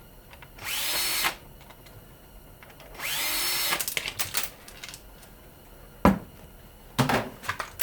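Power drill run in two short bursts, each spinning up in pitch to speed and running for under a second, taking screws out of a fan housing. A few sharp clicks and knocks follow near the end.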